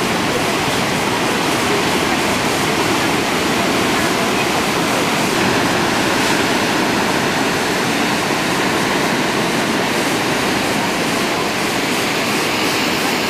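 Heavy surf breaking on a rocky shore: a loud, steady rush of crashing waves and churning foam.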